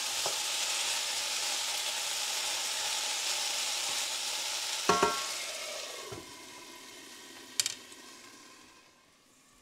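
Diced potatoes sizzling in hot fat in a cast iron skillet while being stirred with a wooden spatula. About five seconds in a lid clanks down onto the skillet with a short metallic ring, and the sizzle turns muffled and fades; a sharp click follows a couple of seconds later.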